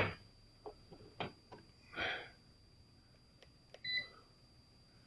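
Light plastic clicks and taps from handling a Kaiweets digital multimeter and its test leads, with a soft hiss about two seconds in. A short electronic beep from the meter comes about four seconds in.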